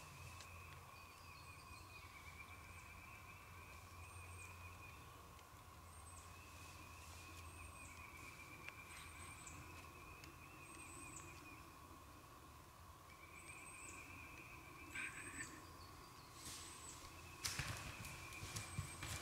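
Quiet spring woodland: songbirds chirp over and over, with wild turkey calls in the background. Near the end comes a louder rustling in dry leaves.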